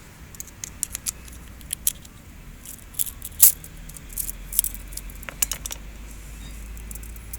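Light, irregular metallic clicks and clinks of small parts being handled: the dismantled cam chain tensioner and its broken spring. The loudest click comes about three and a half seconds in.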